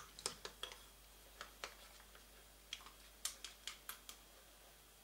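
Hot oil in a non-stick frying pan crackling faintly: about a dozen scattered, irregular ticks and pops.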